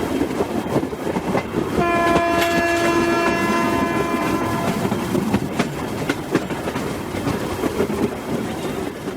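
Freight train running by: a steady rumble of the wagons with wheel clicks over the rail joints, and the locomotive's air horn sounding one long chord from about two seconds in until about five seconds in.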